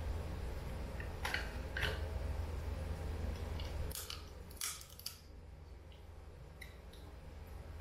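Cooked lobster shell cracking and snapping as it is pulled apart by hand: a couple of sharp cracks, then a cluster of crackling and eating sounds at the mouth about four to five seconds in. A low steady hum underneath stops about four seconds in.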